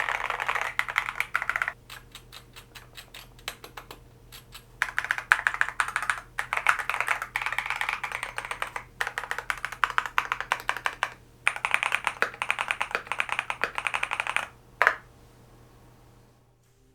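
Typing on a Thera75 V2 mechanical keyboard in its top-mount build, with Lotus switches: quick runs of keystrokes broken by short pauses, and one louder single keystroke near the end.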